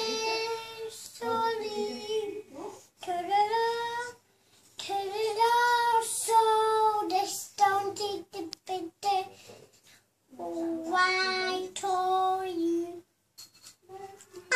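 A toddler singing along to music heard only through his headphones, so just his voice is heard: phrases of long held notes separated by short pauses.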